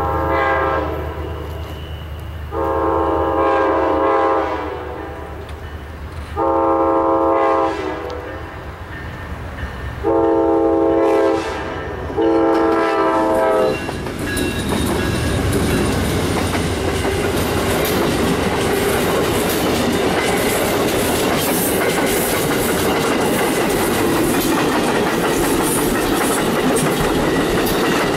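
Amtrak P42DC diesel locomotive sounding its horn in a string of blasts as it approaches, over a low engine rumble. About halfway through, the locomotive and its passenger cars pass close by, with steady rail noise and wheel clatter.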